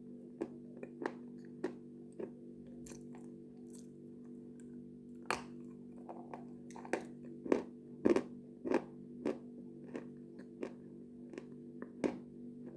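Close-up crunching and chewing of a hard piece of Khrapovsky chalk: a run of sharp crunches about every half second, the loudest bites in the middle. A steady low hum runs underneath.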